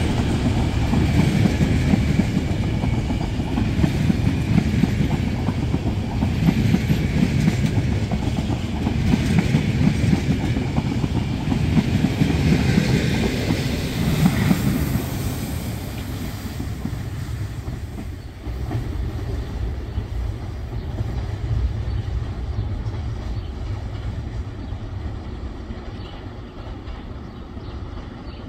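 Passenger train rolling past, its wheels running on the rails. The noise stays loud at first, then grows steadily quieter over roughly the last third.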